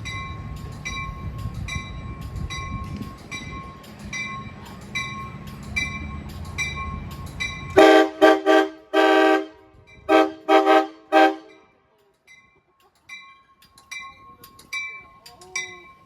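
Amtrak Pacific Surfliner train horn sounding a rapid series of about six loud blasts, one of them longer, about halfway through. Before it a grade-crossing warning bell rings steadily at about three strokes every two seconds over a low rumble that stops suddenly as the horn starts. The bell returns fainter near the end.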